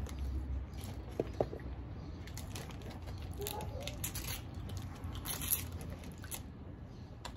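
Eating and food-handling sounds: a plastic fork scraping in a paper cup of mac and cheese, fried chicken being pulled apart and a wrapper crinkling. They come as scattered small clicks and rustles over a low steady hum.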